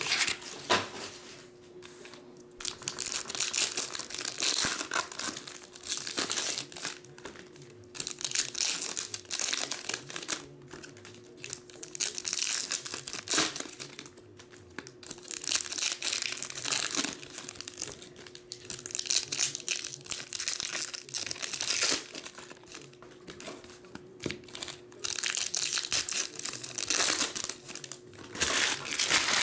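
Foil trading-card pack wrappers crinkling and tearing as packs are ripped open and the wrappers handled, in repeated bouts with short pauses between. A faint steady hum runs underneath.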